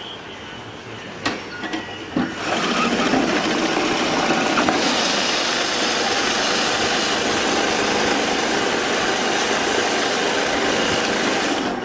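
Mattress overlock sewing machine stitching the edge of a quilted mattress: after a couple of clicks, a steady, fast mechanical whirr starts about two seconds in and holds at an even level.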